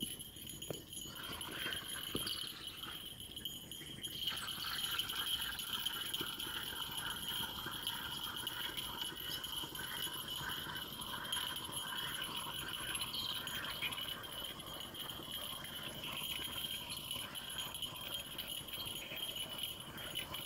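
A steady high-pitched insect drone. From about four seconds in, a rhythmic pulsing chirp repeats regularly beneath it.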